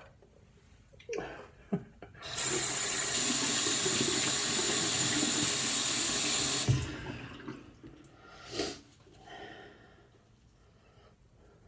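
Sink tap turned on and running in a steady stream for about four seconds, then shut off abruptly, with a few small knocks before it and light handling sounds after.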